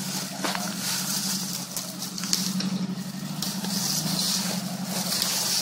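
Jeep Cherokee engine running steadily at low revs as it crawls along a trail, with dry leaves and small stones crackling under the tyres.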